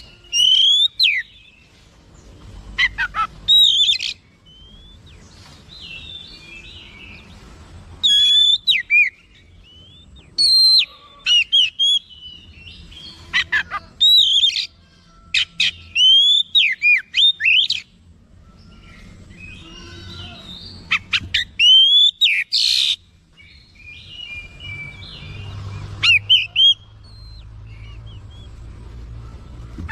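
Oriental magpie-robin singing in full, excited song (gacor): loud phrases of rich rising and falling whistles and rapid chattering notes, about eight phrases with short pauses between them, showing off its repertoire of learned phrases (isian).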